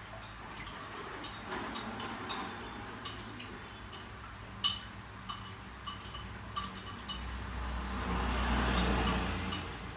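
Scattered light clicks and clinks, the sharpest about halfway through, over a low rumble that swells about seven seconds in and fades near the end.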